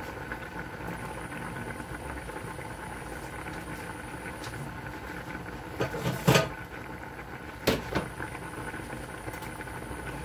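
Steady motor hum, with a few sharp clattering knocks of kitchenware about six seconds in and again near eight seconds.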